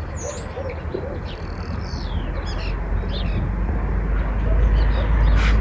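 Birds calling in flight with short high chirps, and a pigeon cooing in the first second. Under them is a low rumble that grows louder toward the end.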